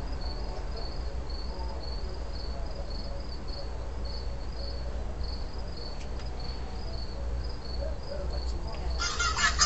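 Cricket chirping steadily, a high chirp about three times a second. Near the end a much louder, harsh sound cuts in suddenly.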